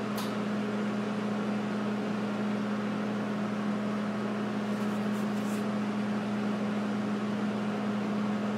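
Steady machine hum with an even hiss underneath, holding level throughout.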